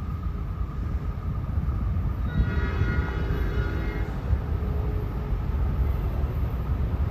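Distant train air horn blowing one long blast of about two seconds, a chord of several tones, over a steady low rumble.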